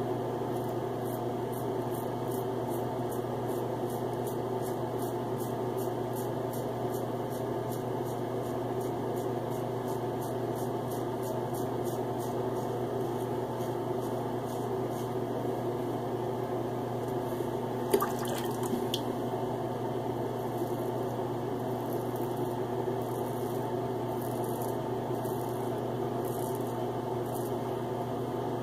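Short strokes of a prewar Gillette Tech safety razor scraping through lather and stubble on the face and throat, several strokes a second in runs, over a steady hum. There is a single sharper knock about two-thirds of the way in.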